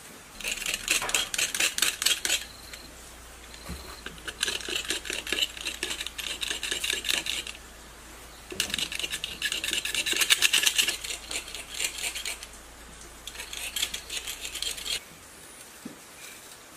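A wire cutter working the enamelled copper winding leads of a generator stator, making rapid metallic clicking and scraping in four bursts of one to three seconds each, with short pauses between.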